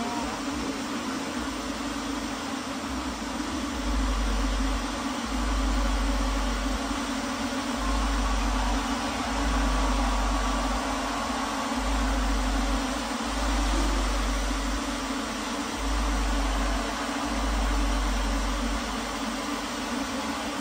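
Steady hum of a swarm of light-show quadcopter drones, with hiss. Wind buffets the microphone in gusts every couple of seconds.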